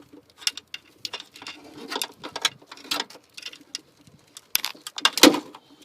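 Hands working on the car's wiring: irregular clicks, snaps and crackles of parts being pulled and broken off, with the loudest crack a little after five seconds in.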